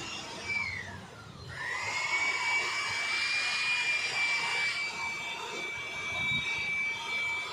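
The high-pitched whine of an electric power tool's motor running over a broad hiss. About a second in, the pitch falls sharply and then climbs back up and holds steady.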